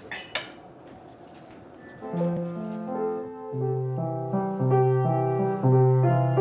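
A piano played slowly in simple held chords over a low bass note, starting about two seconds in. This is basic playing by a learner who is only just taking lessons.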